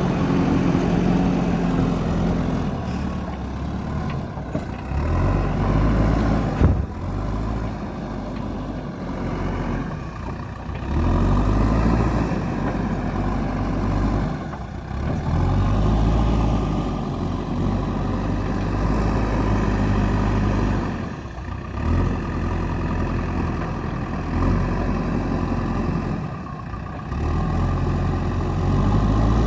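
JCB backhoe loader's diesel engine running, its note swelling and dropping every few seconds as the load comes on and off. A single sharp knock about six and a half seconds in.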